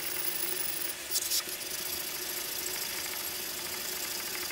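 Honda 125 twin's aluminium cylinder head being slid back and forth on oiled 800-grit abrasive paper over a marble slab: a steady scraping hiss as the gasket face is lapped flat, with a brief louder rasp about a second in.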